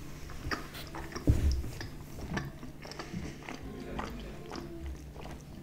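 Close-miked chewing of a mouthful of pizza, with scattered short wet mouth clicks. A louder low thump comes about a second in.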